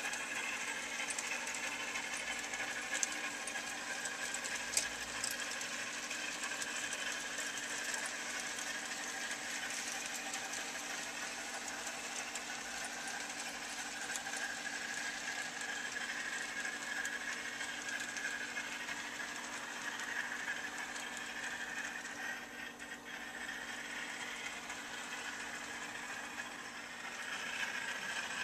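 Model trains running on a layout: the steady whir of small electric motors and wheels rattling along the track, with a couple of sharp clicks about three and five seconds in.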